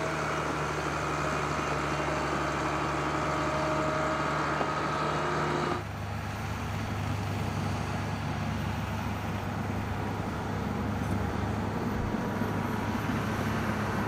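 A Bombardier snow groomer's diesel engine running steadily under load. About six seconds in, the sound changes abruptly to a lower, deeper engine note as another shot of the groomer begins.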